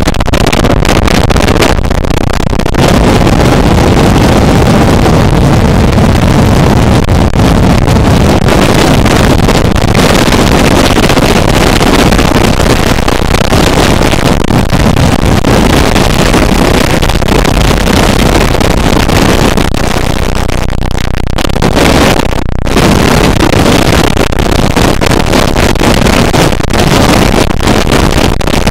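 Harsh noise music: a loud, dense wall of distorted noise from deep rumble to high hiss. Its texture shifts abruptly a few times, and the top end cuts out briefly about three-quarters of the way through.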